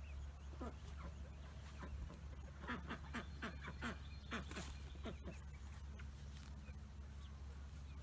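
Fowl calling: a series of short calls, each falling in pitch, several in quick succession around three seconds in, over a steady low hum.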